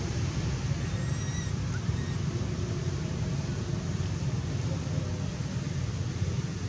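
Steady low rumble of wind buffeting the microphone, with a faint short high-pitched squeak about a second in.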